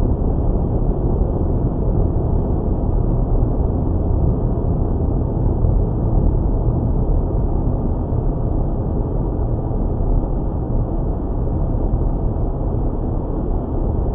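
Steady road, tyre and engine noise inside a car cruising on a highway at about 60 mph.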